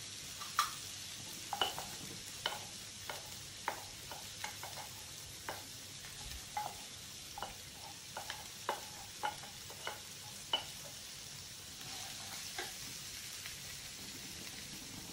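Oil sizzling faintly in a pan as boiled chana dal is stirred into a tadka with a wooden spatula, with irregular light knocks and scrapes of the spatula every second or so. The knocks stop near the end, leaving only the sizzle.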